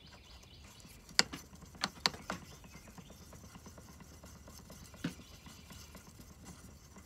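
Knife blade clicking and tapping against a sharpening surface during hand sharpening: a quick cluster of four sharp clicks, then one more a few seconds later, over faint scraping.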